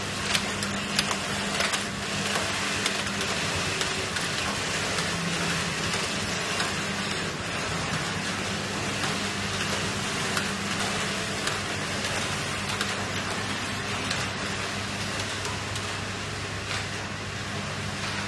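Rows of knitting machines running together: a steady mechanical din over a constant low hum, with scattered clicks and clacks.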